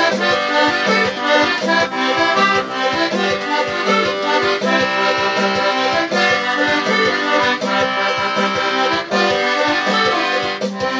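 Diatonic button accordion (gaita) played solo in funaná style, without the ferrinho scraper: a fast melody over an even bass pulse of about four beats a second.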